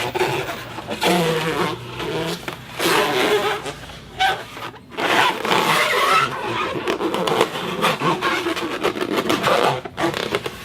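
Foley sound effect: uneven scraping and rubbing noise that breaks off and restarts many times, with a few short squeaks.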